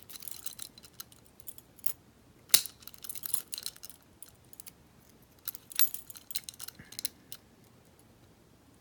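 Metal warded pick keys clicking and jingling on their ring as one is turned and worked in a warded padlock, the shackle held under upward pressure but not yet releasing. Scattered sharp metallic clicks, the loudest about two and a half seconds in and again near six seconds.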